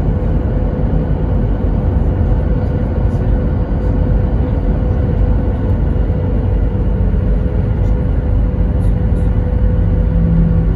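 Cabin noise inside a Southwest Airlines Boeing 737: a steady, loud rumble of engines and airflow with a constant hum, and a lower hum coming in near the end.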